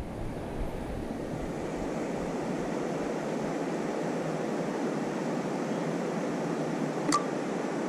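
Steady rushing noise, with one sharp click about seven seconds in.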